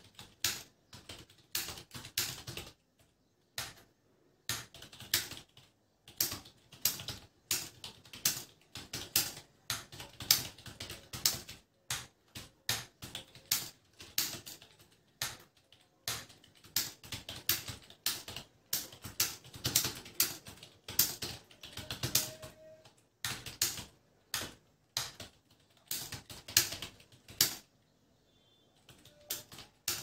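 Fast typing on an external computer keyboard: rapid runs of key clicks with short pauses between them, at about 60 words a minute during a timed typing test.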